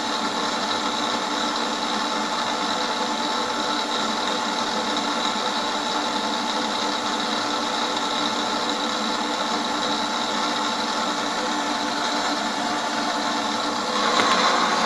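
A machine-shop power tool's motor running steadily, with a few held tones over a mechanical hum. Near the end it gets louder and a higher tone comes in.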